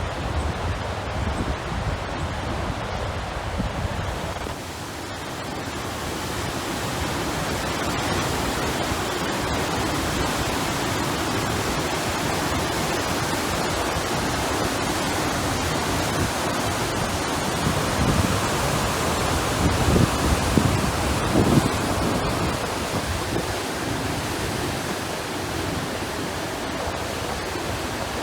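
Rushing water from the typhoon-swollen river or surf, a steady even roar. Wind buffets the microphone with low rumbles in the first few seconds and again in a few gusts about two-thirds of the way through.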